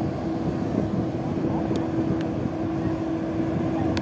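Container ship passing close by, a steady low drone with a held hum tone over a broad wash of noise. A few faint sharp ticks come in about halfway and near the end.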